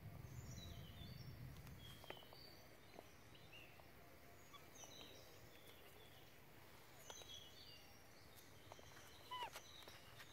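Near silence in woodland, with faint, short bird chirps scattered throughout and one slightly louder call about nine seconds in.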